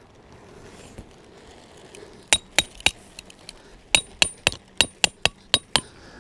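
Snow Peak copper-head hammer striking a Snow Peak tent peg into the ground: three sharp metallic clinks a little over two seconds in, then a run of eight more at about four a second, each with a short bright ring.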